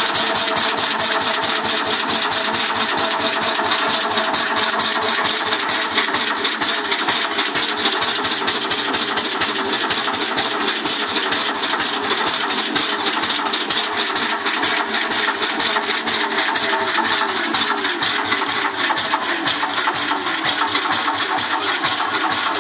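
Ransomes MG crawler's single-cylinder air-cooled engine running steadily, a rapid even beat of firing pulses.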